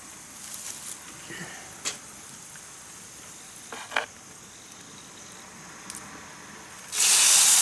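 A few light clicks and knocks of cooking gear, then near the end a sudden loud sizzle as food goes into hot oil in a frying pan over the campfire.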